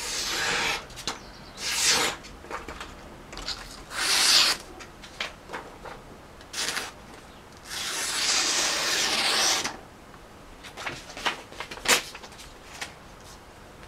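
Sharpened Bark River Lil Canadian knife slicing a sheet of paper to test its edge: a series of short, hissing scrapes, with one longer cut of about two seconds midway and a few quick sharp scrapes near the end.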